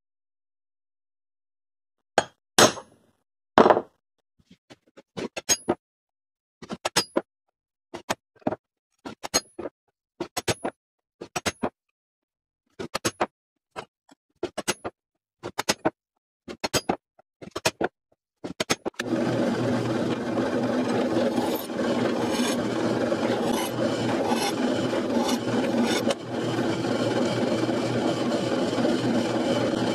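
A metal centre punch being struck on a steel knife blade to mark hole spots: a run of sharp metallic clicks, often in pairs, about one every second. About two-thirds of the way in, a drill press starts running steadily as its bit cuts into the blade.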